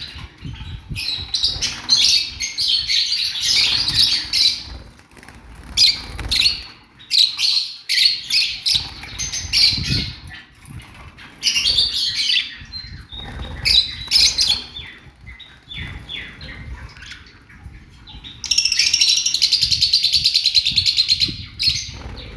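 Small cage birds chirping and twittering in repeated bursts, then a denser, continuous chatter for about three seconds near the end.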